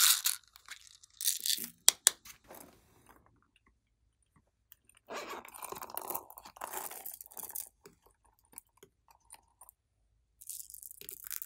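Close handling noise of small objects: a sharp click about two seconds in, then a few seconds of raspy clicking as a small zippered coin purse is opened and plastic pearl beads are taken out, and a short rattle of the beads near the end.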